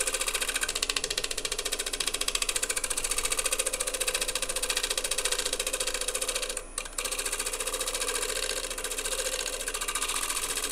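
Heavy-duty negative rake scraper cutting the outside of a natural-edge bowl spinning on a wood lathe: a fast, even chatter as the tool bounces over a ridge in the wood. The cut breaks off briefly about six and a half seconds in.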